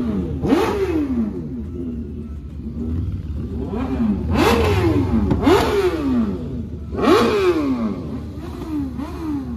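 Several motorcycle engines revved in repeated quick throttle blips over a low idle. Each rev rises sharply and then falls away in under a second, and some revs overlap.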